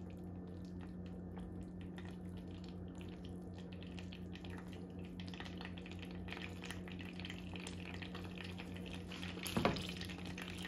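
Butter melting with olive oil in a hot skillet, sizzling gently with fine crackling pops over a steady low hum. A brief louder knock comes near the end.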